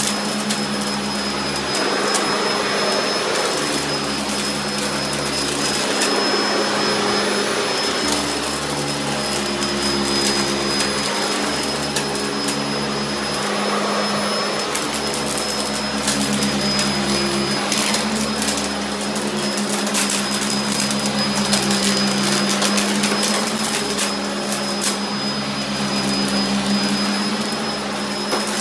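Sanitaire upright bag vacuum running steadily over carpet, its motor humming under a thin high whistle. Frequent ticks and rattles come from debris being sucked up.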